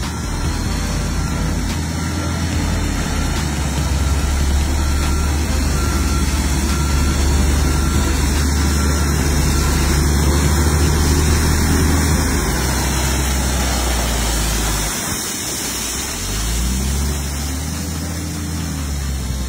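Dump truck's diesel engine running steadily while crushed gravel pours out of its raised bed through the open tailgate, a low engine hum under a rushing hiss of stone. Near the end the engine pitch rises and then falls.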